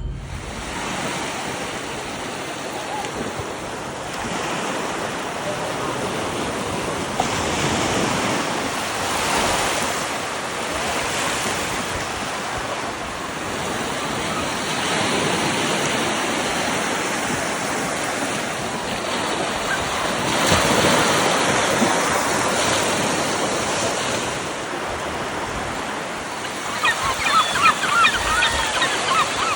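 North Sea surf: waves breaking and washing up a beach, the rush swelling and easing every few seconds. Near the end, a quick run of short, high-pitched sounds rises over the surf.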